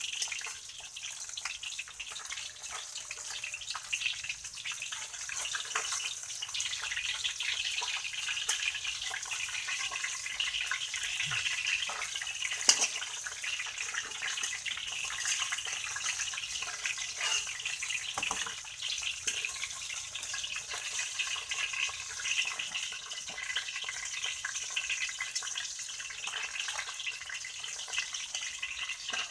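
Fish frying in hot oil in a steel wok: a steady sizzle and crackle, with a metal spatula scraping and clicking against the wok as the pieces are turned and lifted out, and one sharp knock a little before the middle.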